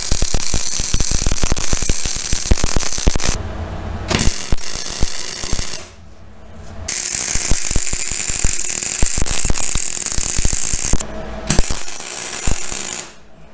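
MIG welder arc crackling as beads are run on the corner joints of a steel axle truss. The arc runs in stretches, stopping and restarting three times, and breaks off shortly before the end.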